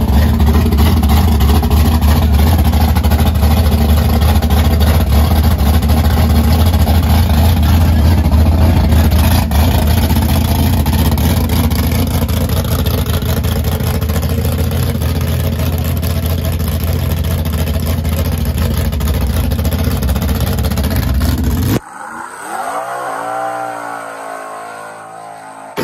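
Turbocharged Chevrolet Monte Carlo SS drag car's engine running loud and steady. About 22 seconds in the level drops suddenly and the engine revs up and down through a burnout.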